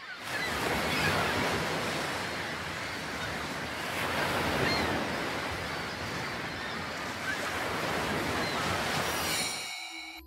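Steady wash of ocean waves, swelling and easing a little, then fading out near the end as faint ringing tones come in.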